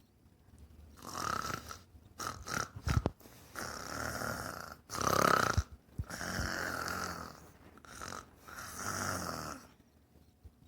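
A person imitating a dog's snoring: a run of about half a dozen long snores drawn in and out, with a few short ones in between, the loudest about halfway through.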